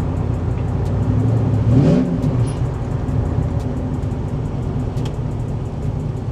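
Porsche Cayenne's engine and road noise inside the cabin while driving: a steady low hum, with the engine pitch rising briefly about two seconds in as it picks up speed.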